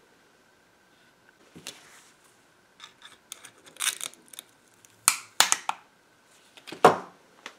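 Long-nose pliers and gloved hands working the metal bracket of a tube-amplifier power transformer: short scrapes and sharp metal clicks, the loudest a few single clacks about five seconds in and again near seven seconds.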